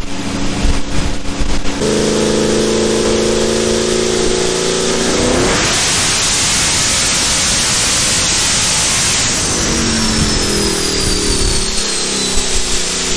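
Race-built Ford Mustang's engine, with freshly installed cams, making a pull on a chassis dyno. It runs steady, then climbs in pitch for a few seconds and goes into a loud rushing roar. It then winds back down, with a high whine falling in pitch near the end.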